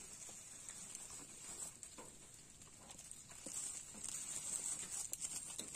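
Faint scattered clicks and plastic-bag crinkles as fingers pick apart a charred grilled fish on a plastic bag, over a steady high hiss.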